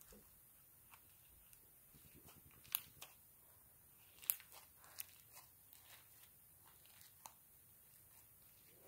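Faint, scattered clicks and small pops of fluffy homemade slime being stretched and squeezed in the hands, against near silence.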